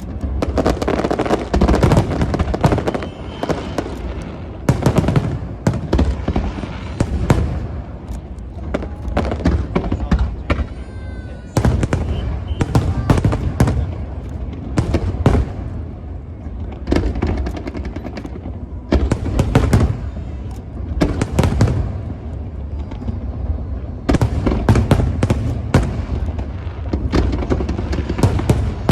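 Aerial fireworks exploding in a rapid, unbroken barrage of booms and crackles, with a continuous low rumble beneath the bursts.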